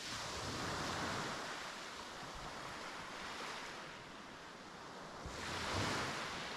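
Small sea waves washing onto a beach, heard as surges of rushing hiss. One swells at the start and peaks about a second in; a second, louder one comes about five and a half seconds in.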